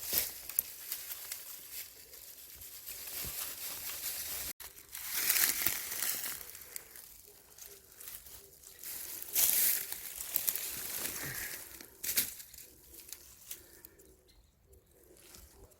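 Leaves, soil and ivy vines rustling and tearing in several loud bursts as the ivy's long surface roots are dug and pulled up by hand. A dove coos faintly in the background in the second half.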